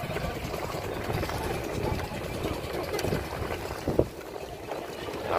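Wind buffeting the microphone over choppy sea water, an uneven low rumble, with faint voices; a brief sharp sound about four seconds in.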